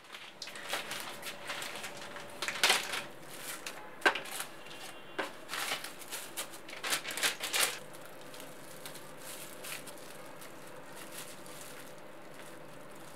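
Crinkling and rustling of cling-film-wrapped vegetables and a plastic tray being handled, with several sharp knocks, the loudest about four seconds in. The handling noise dies down after about eight seconds, leaving a faint steady hum.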